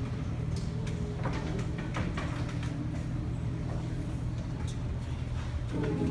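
Steady low room hum with scattered small clicks and faint murmurs from the audience. Near the end, an a cappella choir starts singing, with voices coming in on sustained notes.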